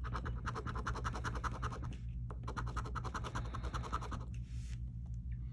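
Scraping the scratch-off coating off a $30 lottery ticket by hand: rapid back-and-forth strokes, about nine a second, in two runs with a short pause about two seconds in.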